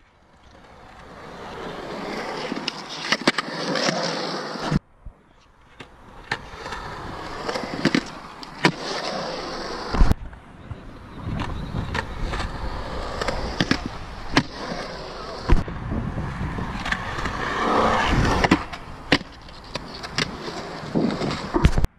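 Skateboard wheels rolling over a concrete skatepark, a rumbling roll that swells and fades as the board rides the bumps and banks. It is marked by sharp clacks of the board and wheels striking the concrete, and is broken by a few abrupt cuts.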